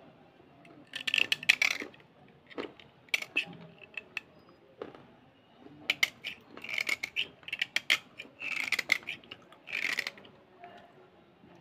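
A steel blade scraping a slate pencil, in quick rasping strokes that come in about five clusters with short pauses between.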